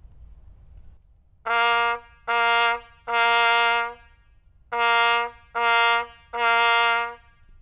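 Cornet playing a clean, tongued note C (sounding concert B-flat) six times, in two groups of short, short, long. Each note starts crisply from the tongue and holds a steady pitch: buzzing and tonguing together.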